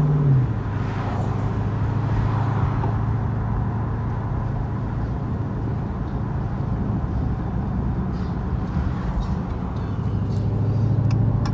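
Supercharged 6.2-litre HEMI V8 of a Dodge Hellcat with a newly fitted cold air intake, heard from inside the cabin while driving: a steady low engine note with road noise. It swells a little near the end.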